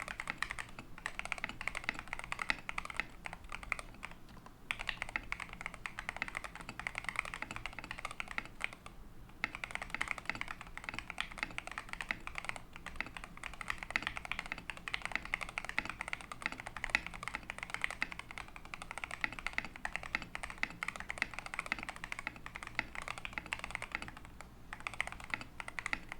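Typing on a TM680 65% mechanical keyboard fitted with Gateron Oil King linear switches and SA-profile keycaps: a fast, continuous stream of keystrokes broken by a few brief pauses.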